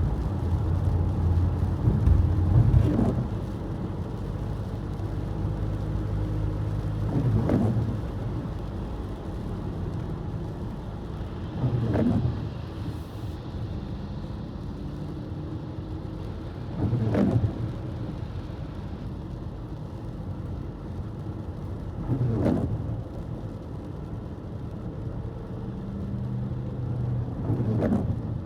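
Steady car cabin noise from the engine and tyres on a wet road. A short swish comes about every five seconds, six times, fitting windshield wipers on an intermittent setting.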